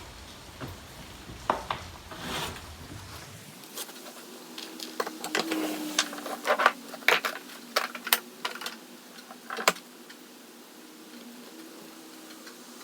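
Scattered light metallic clicks and taps of hand tools working on the old sledgehammer head as its metal wedge is worked loose, busiest in the middle, over a faint steady hum.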